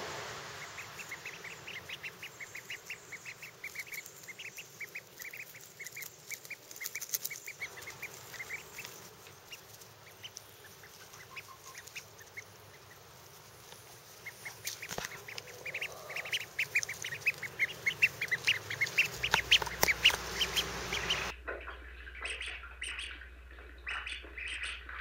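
Runner ducklings peeping in quick runs of short, high calls, a few a second, louder in the second half.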